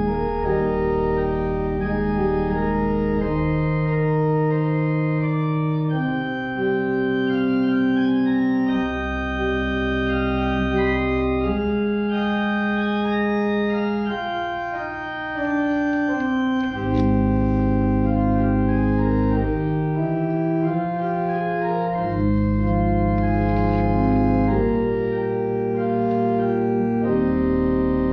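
Church organ playing slow, sustained chords, with deep pedal bass notes coming in and dropping out every few seconds.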